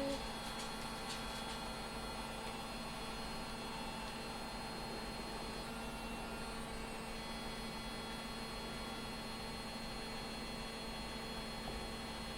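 A steady, unchanging electrical hum with a few fainter overtones and nothing else.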